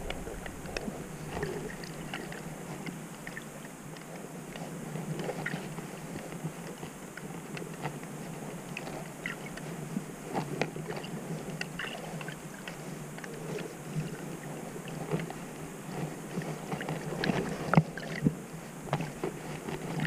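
Underwater ambience picked up by a submerged camera: a low, muffled wash of water with scattered clicks and crackles, and one sharper knock a little before the end.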